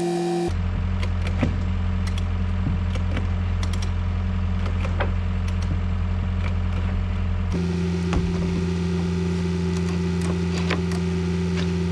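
Excavator's diesel engine running steadily at a low hum, with scattered clicks and knocks. The engine note shifts abruptly twice, about half a second in and again past seven seconds.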